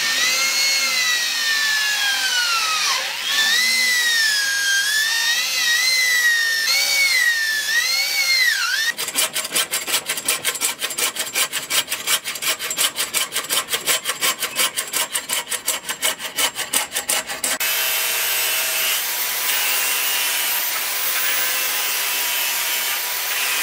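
An electric drill bores into a wooden knife handle with a pitched squeal that wavers up and down. About nine seconds in, a hacksaw takes over with fast, even strokes. Near the end an angle grinder fitted with a sanding disc runs steadily against the wood.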